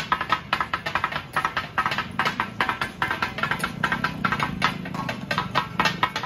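Metal spatulas rapidly striking and chopping on a flat iron griddle (tawa) for katakat: a fast, irregular metallic clatter of several ringing strikes a second over a low background hum.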